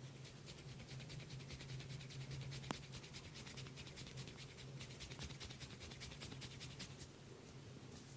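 Rapid, light strokes of a hands-on head massage, about six a second, each a short crisp scratch, over a steady low hum. One sharp click about two and a half seconds in.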